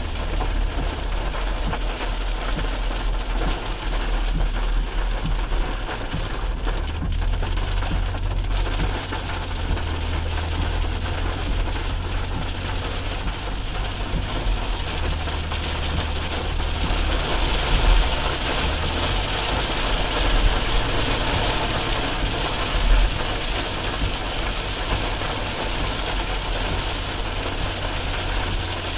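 Inside a car driving in heavy rain: a steady low rumble of engine and tyres on the wet road under the hiss of rain on the windshield and roof. The rain hiss gets louder a little past halfway.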